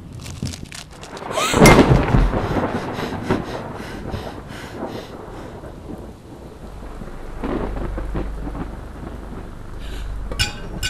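Thunderstorm: a sudden thunderclap about a second and a half in, rolling into a long rumble over steady rain, then a second low rumble swelling in the middle and a sharp crack near the end.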